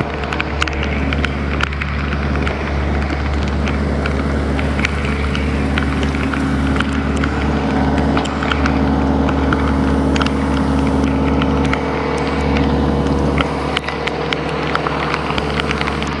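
An engine running at a steady speed under heavy rain, with many scattered sharp taps of raindrops.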